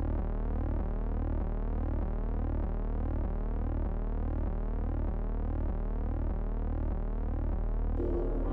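Background electronic music: a quickly repeating pattern of gliding synth tones over a steady low drone. About eight seconds in, a different, fuller tune with piano-like notes takes over.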